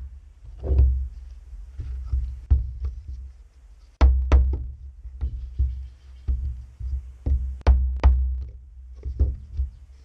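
Claw hammer striking a glued wooden test block on a wooden deck: a series of irregular sharp knocks with heavy thumps, the strongest about four seconds in and a quick run of blows near eight seconds. The blows are meant to force apart a Titebond III glue joint after two days soaking underwater.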